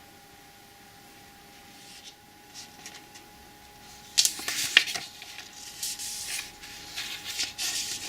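Packaging being handled and rustled while unboxing, faint at first, then loud, busy rustling and scraping from about halfway through. A faint steady tone hums underneath.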